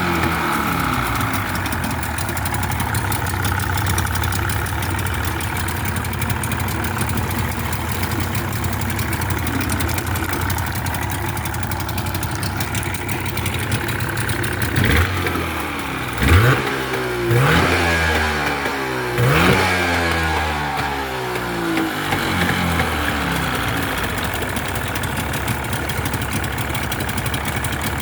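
1988 Mariner Magnum 30 hp two-stroke outboard motor running steadily. It is blipped up in revs four times in quick succession about halfway through, each rev rising sharply in pitch, then drops back to a steady run.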